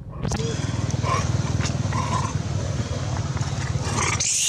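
Macaque monkeys squealing and screeching in a scuffle: short cries about one and two seconds in, and a harsher burst of screams near the end. Under them a steady low rumble starts suddenly just after the start and is the loudest sound.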